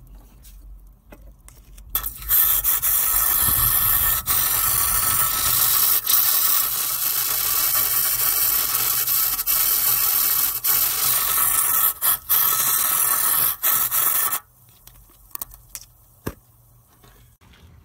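Aerosol can of Seafoam spraying through its red extension straw into the engine's oil filler and onto the valve-cover baffle: one long, loud hiss of about twelve seconds that stops abruptly. It is flushing sludge down through the engine while the old oil drains.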